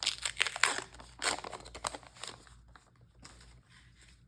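Foil wrapper of a Star Wars Unlimited booster pack crinkling and being torn open, a quick run of crisp crackles that thins out and fades after about two seconds.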